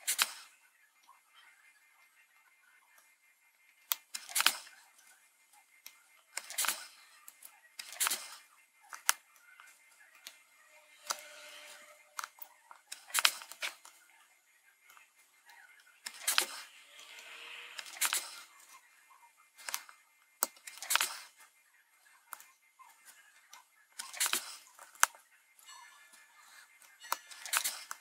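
Sharp, irregular clicks and taps every second or two as a small LED matrix circuit board and a soldering iron are handled, while the LEDs are reheated and pushed flush. A couple of soft scratchy rustles come between them.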